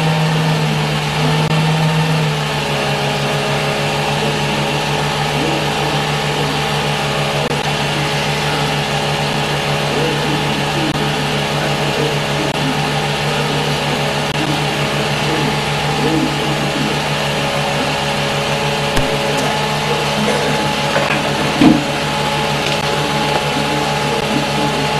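Film projector running: a steady motor hum with several fixed tones, dropping slightly about two seconds in, with a single sharp knock near the end.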